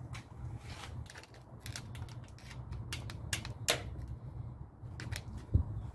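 Irregular metal-on-metal clicks and taps of a long screwdriver working against a MerCruiser 3.0 L engine's connecting rod and crankshaft as the rod is pried loose, with a heavier knock near the end. A steady low hum runs underneath.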